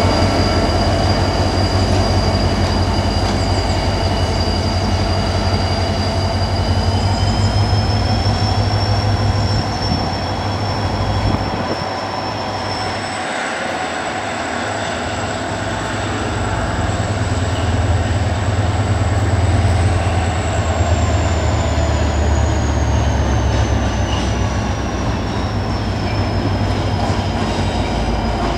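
Irish Rail 071 Class diesel locomotive, with an EMD 12-645 V12 two-stroke engine, running as it hauls a train slowly toward the listener. A steady low engine rumble dips about halfway and then swells back. Over it sit high whining tones that rise in pitch, jump higher, then slide slowly back down near the end.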